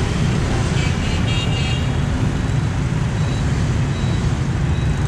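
Dense motorbike and scooter traffic running steadily past on a busy street, a continuous engine and road noise.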